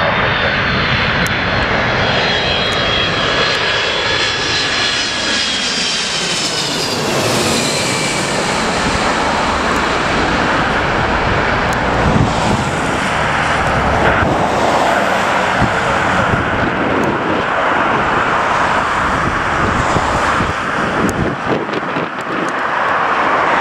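Boeing 767 airliner's twin turbofan engines passing low overhead on final approach: a high whine that falls in pitch over the first several seconds as it goes by, over a loud, steady jet rumble that carries on as it descends to the runway.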